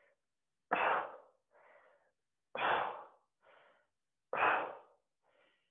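A woman breathing hard with each torso twist of a held squat: three forceful exhales about two seconds apart, each followed by a quieter inhale.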